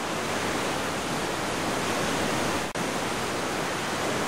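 Large waterfall pouring: a steady, dense rush of falling water. It breaks off for an instant about two-thirds of the way through.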